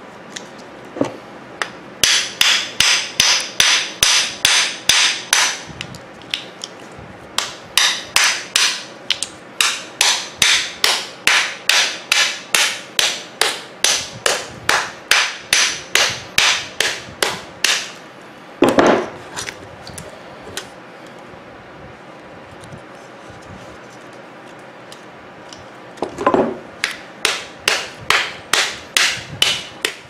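Steel claw hammer rapidly striking a microwave oven transformer's iron core to knock a part loose: sharp metal-on-metal blows at about three to four a second, in runs of several seconds. The blows pause after about 18 s, with a heavier knock, then resume about 26 s in.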